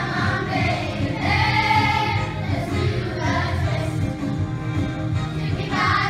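A group of children singing together in unison over a musical accompaniment with a steady bass line.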